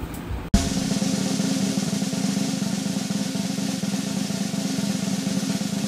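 Background music carried by a sustained drum roll, which cuts in sharply about half a second in and keeps up a steady, fast roll.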